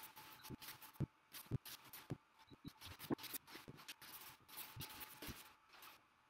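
Nylon fabric of an inflatable dinosaur costume rustling and swishing in bursts as the wearer twists and bends, with several soft thumps mixed in. It stops about six seconds in.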